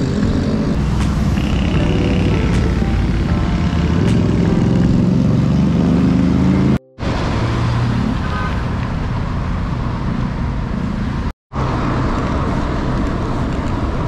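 Road traffic heard from a moving bicycle on a busy road: cars and motor tricycles running and passing over a steady rumbling road noise. The sound drops out briefly twice.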